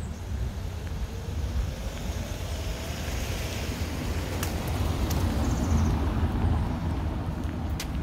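Road traffic noise: a vehicle passing, swelling to its loudest a little past halfway through over a steady low rumble, with a few faint sharp clicks.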